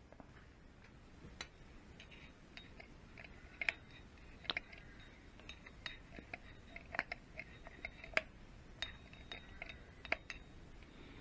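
Faint, irregular clicks and light metal clinks, some with a brief high ring, from a steel gearbox sprocket and an oil can being handled.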